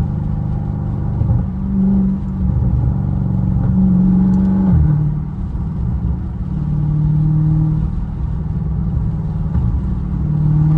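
Dodge Charger Scat Pack's 392 HEMI V8 with catless mid-pipes droning loudly through the exhaust, heard from inside the cabin while driving. Its pitch steps down about halfway through, then climbs a little again near the end.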